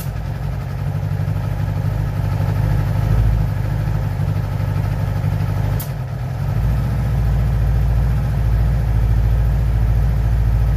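2011 Yamaha R6's inline-four engine idling with a puffing, popping exhaust. A single sharp click comes about six seconds in, after which the low engine sound gets stronger.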